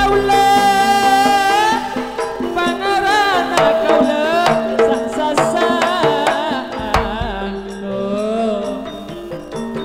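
Javanese gamelan playing a gending: metallophones struck with mallets in a dense repeating pattern, kendang drum strokes with deep low hits at the start and about seven seconds in, and a singer's long, wavering vocal line held over the ensemble.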